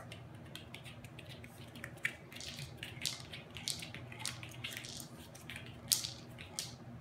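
Kibble rattling and clicking inside a wobbler treat-dispensing toy as a small dog knocks it over and it rocks, in irregular sharp clicks that are loudest about six seconds in.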